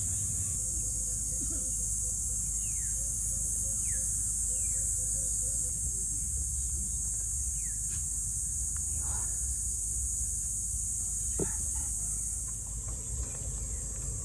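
Steady high-pitched drone of insects such as crickets, with short falling bird-like chirps repeating about once a second and a brief run of quick low pulses in the first half. A low steady rumble runs underneath, and the insect drone eases near the end.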